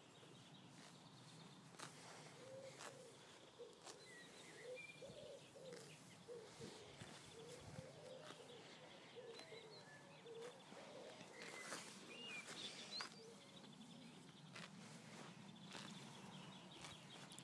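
Quiet outdoor ambience with faint birdsong: a run of short low calls and a few high chirps, with occasional faint clicks.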